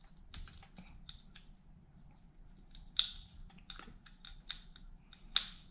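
Small plastic clicks and taps of a USB cable being handled and plugged into the port of a small plastic Wi-Fi IR remote, with two sharper clicks, one about three seconds in and one near the end.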